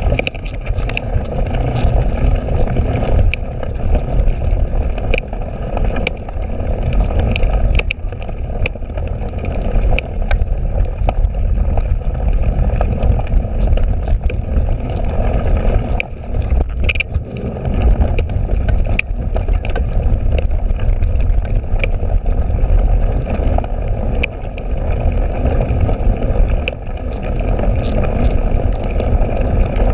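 A cyclocross bike ridden fast over bumpy grass and mud, heard from a handlebar camera: a steady low rumble of tyres and wind on the microphone, with frequent sharp clicks and rattles as the bike jolts over the rough ground.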